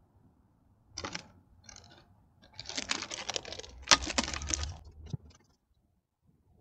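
Close rustling and clicking from gear being handled, in several bursts with a sharp click about four seconds in, then it goes quiet about a second later.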